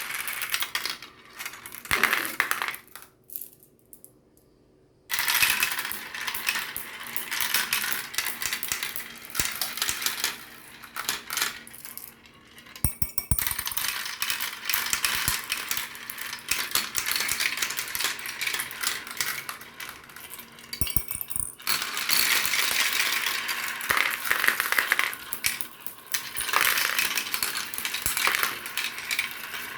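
Many marbles rolling and clattering down a marble run track, a dense run of quick clicks and rattles. The clatter drops out for about two seconds near the start, then starts again suddenly.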